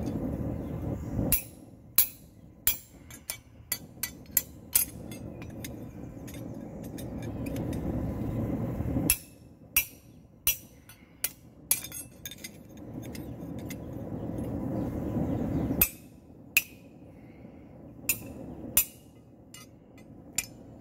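A hand hammer strikes a steel punch driving the nail holes through a steel horseshoe on an anvil. Sharp metallic clinks ring out in three bursts of several blows each. Between the bursts there is a steady low rumble.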